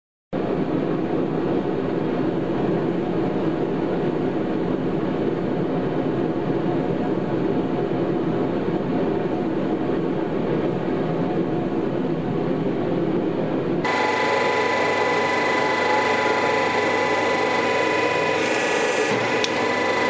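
Forge burner and blower running with a steady rushing noise and no hammer blows. About two-thirds of the way through, the sound cuts to a brighter rush with a steady whine on top.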